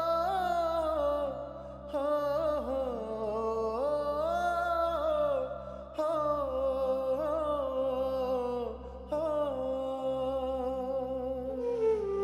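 Background music: a wordless humming voice carrying a slow, gliding melody in phrases of a few seconds, over a steady low drone.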